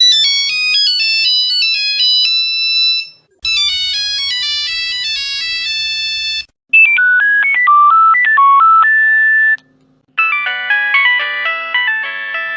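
Nokia mobile phone ringtones playing one after another: short melodic excerpts of about three seconds each, separated by brief gaps, with a fourth starting about ten seconds in. The first two are high and bright, the third is lower with a buzzy undertone, and the last has several notes sounding together.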